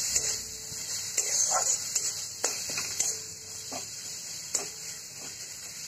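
Onion and ground-spice masala sizzling in hot oil in a kadai, stirred with a spatula that scrapes and knocks against the pan about half a dozen times.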